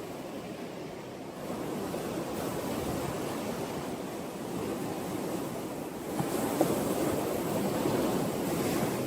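Sea waves breaking and washing up a shore in a steady hiss of surf. The sound swells about a second and a half in, then surges louder from about six seconds before easing off.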